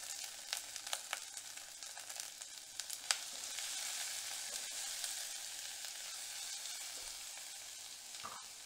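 Chopped small onions, garlic cloves and fresh curry leaves sizzling in hot oil in a pot, with a few sharp pops in the first three seconds and a wooden spatula stirring them. The onions are being cooked until soft and lightly browned.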